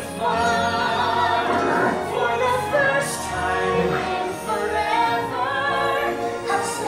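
Ride soundtrack music from the attraction's speakers: a woman singing a song over backing music, voicing the animatronic Anna figure.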